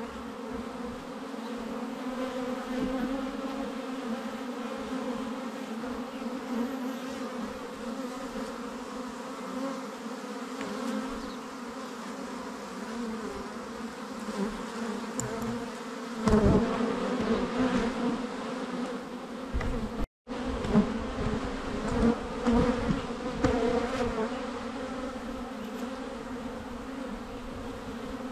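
Honeybees buzzing in numbers as they make orientation flights in front of their hive: a steady hum with a low drone and a higher overtone. Near the middle it grows louder and more uneven, and it cuts out for a split second a little later.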